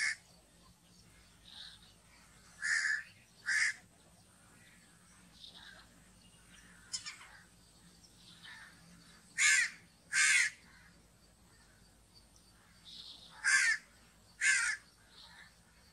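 Crows cawing: three pairs of short caws a few seconds apart, with fainter bird calls between them.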